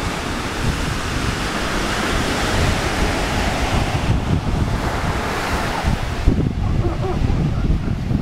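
Ocean surf washing on a beach, its hiss swelling and falling away about four and six seconds in, with wind buffeting the microphone.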